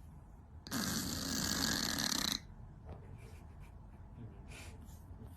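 A single long, rasping snore-like breath, lasting under two seconds, starting about a second in.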